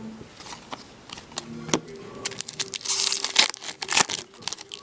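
Foil trading-card pack wrappers crinkling and tearing as hockey card packs are opened and the cards handled, with a run of sharp clicks and a denser rip around three seconds in.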